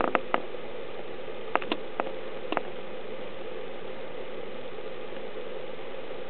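Steady background hiss and hum, with several short sharp clicks in the first three seconds and nothing after them.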